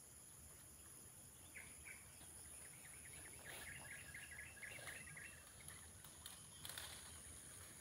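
Quiet plantation ambience: a steady high insect drone, with a bird calling in a quick run of short chirping notes for a few seconds near the start, and a few faint rustles.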